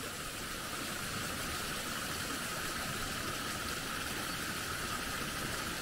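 Steady, even outdoor background hiss with no distinct event.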